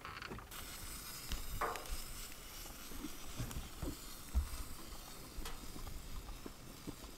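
Wood-pellet fire burning in a pizza oven: a steady hiss with scattered small crackles, and a low knock about four seconds in.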